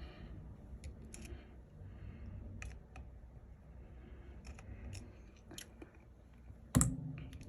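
Small tools clicking and tapping on the phone's internal parts, a scattering of light sharp ticks with one louder knock near the end.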